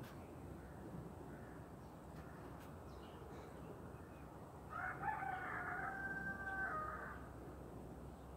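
A single drawn-out animal call about five seconds in, lasting about two seconds: rough at the start, then a held note that drops at the end.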